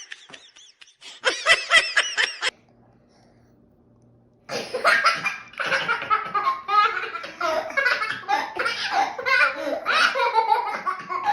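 People laughing: a short burst of high-pitched laughter, a break of about two seconds, then several voices laughing together.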